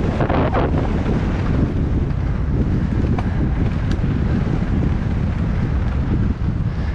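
Loud, steady wind rumble buffeting a helmet-mounted action camera's microphone as a mountain bike descends a dirt singletrack at speed, mixed with the rush of tyres on the trail. A couple of faint sharp ticks come about three and four seconds in.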